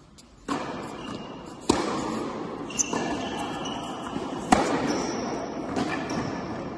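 Tennis ball struck hard with a racket twice, about three seconds apart, each hit echoing around a large indoor tennis hall.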